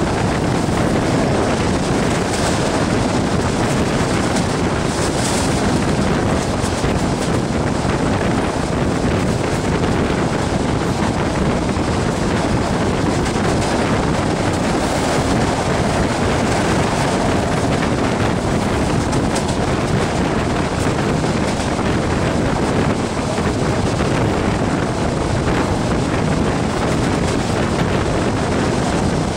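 Steady rush of wind on the microphone from a moving passenger train's open window, over the train's even rolling noise on the track.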